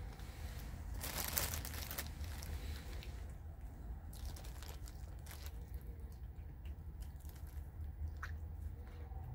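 Cat eating chunks of wet food off a plastic bag: the bag crinkles loudly about a second in, and small chewing and mouth clicks follow, over a low steady hum.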